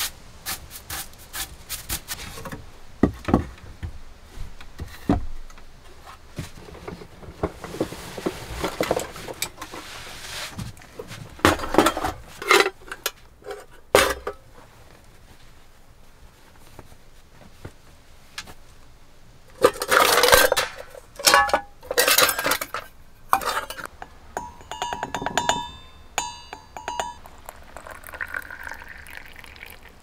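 Camp cookware being handled: scattered wooden knocks and clatter at first, then loud rustling of a canvas bag, then metal pots and utensils clinking and ringing. Near the end comes a soft hiss of ground coffee poured into a metal cezve.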